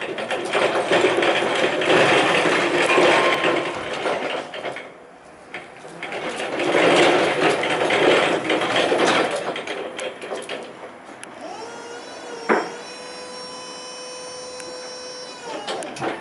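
Jungheinrich ETV Q20 electric reach truck driving, its wheels and drive making two long stretches of rough rattling noise. Then its hydraulic pump motor gives a steady whine for about four seconds as the mast lifts the forks, with a sharp click soon after the whine starts.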